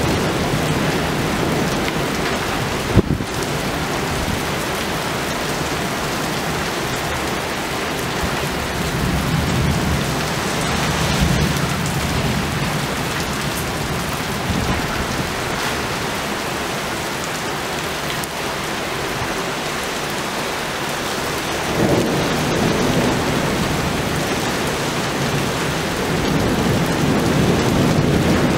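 Heavy rain pouring down in a thunderstorm, a steady hiss, with thunder rumbling and swelling up several times. A single sharp crack about three seconds in.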